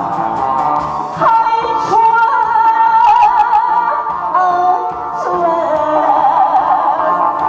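A woman singing into a microphone over amplified backing music, holding long notes, some with a wide vibrato.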